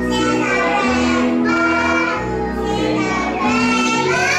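Children's voices singing a song over an instrumental backing track.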